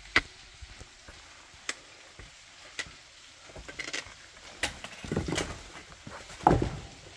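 A hiker's footsteps and scuffs scrambling over sandstone boulders: scattered sharp taps of shoes on rock, then a rougher run of scraping and knocking with a heavier thud near the end.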